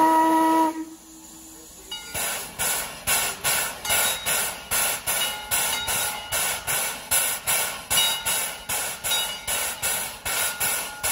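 Steam locomotive whistle blowing a chord that cuts off under a second in; after a short lull, background music with a steady beat starts.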